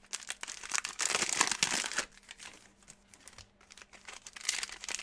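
Plastic trading-card pack wrappers being torn open and crinkled by hand: a busy run of crackling and tearing for the first two seconds, dying down, then picking up again near the end.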